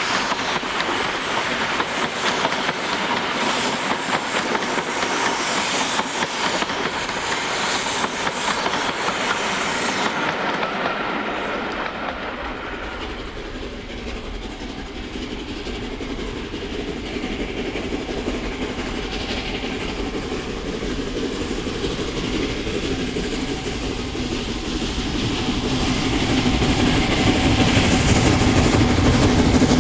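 Coaches of a passing train rolling by, wheels clicking over the rail joints. Then the approaching LNER A2 class steam locomotive 60532 Blue Peter working its train, growing louder near the end.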